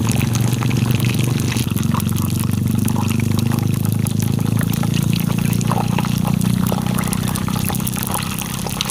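Hot oil sizzling and crackling in a small frying pan as tapioca-dough cibay fries on a portable butane gas stove, with a steady low rumble underneath.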